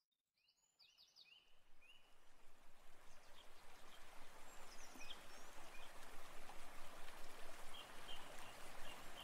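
Outdoor ambience fading in: a steady rushing noise with a few short bird chirps, several in the first two seconds and a few more later on.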